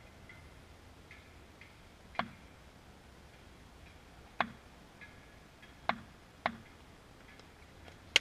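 A cricket bat tapped on a hard court surface as the batsman takes guard: four sharp wooden knocks, unevenly spaced, then a louder sharp crack right at the end as the bowled ball arrives.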